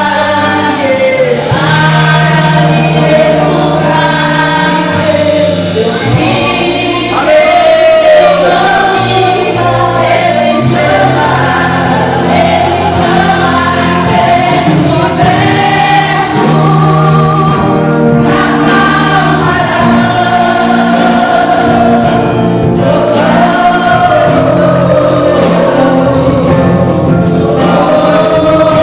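Church choir singing a gospel hymn with instrumental backing and a steady bass line; a regular percussion beat joins about halfway through.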